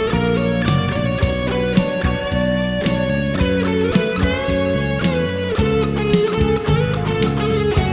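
Instrumental gospel band music: a sustained lead guitar melody over bass and keyboards, with a steady drum beat.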